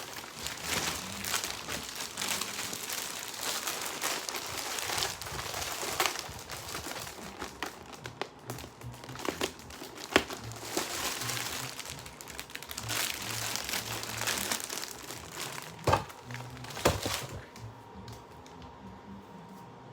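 Close crinkling and rustling of something being handled, with scattered sharp cracks, dying down about two seconds before the end.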